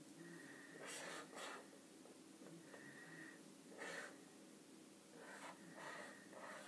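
Faint felt-tip marker strokes on paper: a few short scratchy strokes about a second in, another near four seconds, and a cluster near the end.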